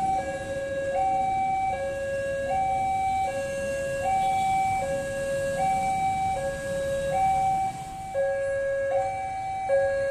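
Railway level-crossing warning alarm sounding a repeating two-tone hi-lo signal, each tone held a little under a second, over the rumble of a passing train. About eight seconds in the rumble drops away and the alarm pattern restarts.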